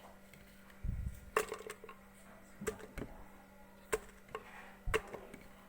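Scattered knocks and clinks of kitchen utensils and dishes being handled, about one every second, with a couple of dull thumps, over a faint steady hum.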